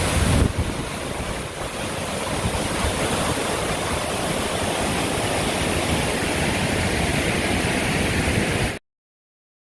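Waterfall on Vickery Creek, water pouring steadily with a deep rush, slightly louder and boomier in the first half second, then cutting off suddenly near the end.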